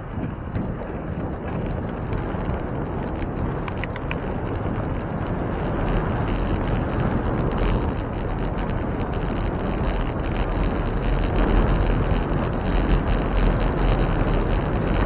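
Wind rushing over the microphone of a camera riding on a moving bicycle, mixed with road rumble. It is a steady rush with a few faint ticks, growing a little louder as the ride goes on.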